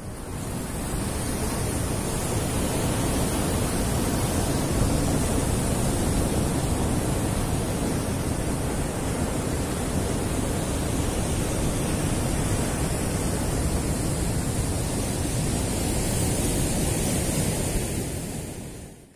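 Steady rushing noise of surf with wind on the microphone, no pitch or rhythm to it, cutting off suddenly at the end.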